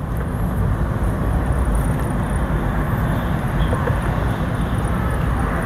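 Steady rumble of a car's engine and tyres while driving, heard from inside the cabin.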